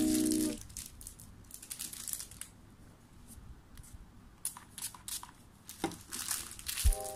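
Clear plastic packaging crinkling and rustling in irregular bursts as a remote control is unwrapped and handled, with a quieter stretch in the middle. Background music stops about half a second in and starts again near the end.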